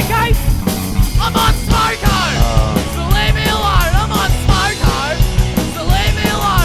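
Loud punk rock music with a driving drum beat and bending vocal or lead-guitar lines.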